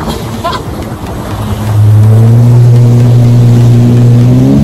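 Yamaha WaveRunner jet ski engine under way, with wind and water rushing over the microphone. About one and a half seconds in, the engine's steady note grows loud, creeps up in pitch, then steps up sharply near the end as the throttle opens further.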